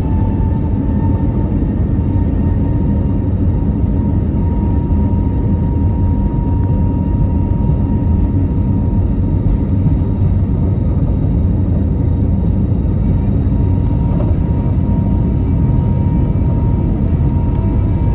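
Airbus A320neo's turbofan engines heard from a cabin seat over the wing, spooling up to takeoff thrust for the takeoff roll. A whine rises in pitch at the start and then holds steady over a loud, constant rumble.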